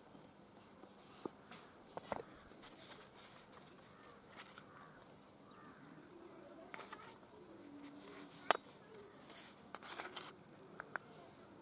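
Faint clinks of a steel spoon against a stainless steel plate, with short soft scrapes as powdered flour and chilli are spooned onto it; the sharpest clink comes about two-thirds of the way through.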